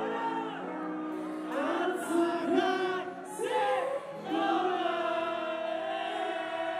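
Live pop-rock concert music: a female lead singer sings short phrases into a microphone over sustained band chords, then holds one long note from a little past the middle.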